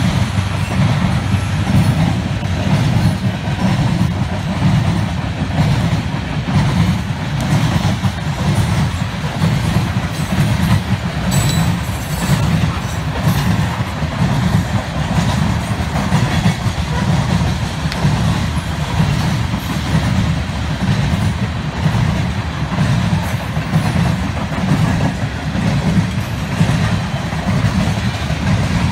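A coal train rolling past close by, its coal cars passing one after another with a steady low rumble and rattle of wheels on the rail.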